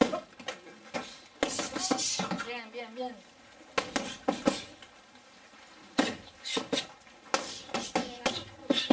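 Sharp smacks of taekwondo kicks striking a hand-held foam kick shield, one after another and often two in quick succession, about a dozen in all. A short voice is heard about two and a half seconds in.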